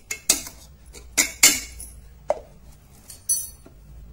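A metal spoon clinking and scraping against the inside of a stainless steel mixer-grinder jar, about six sharp separate knocks, as the half-ground green chutney is pushed down between grinding runs.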